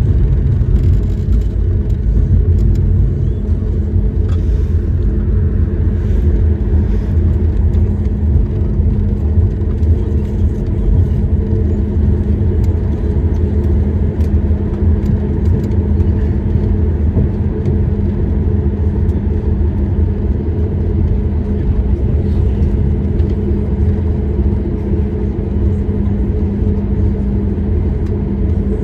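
Airliner cabin noise while rolling out on the runway after touchdown: a steady low rumble of the jet engines and wheels with a steady hum, slowly easing as the plane slows.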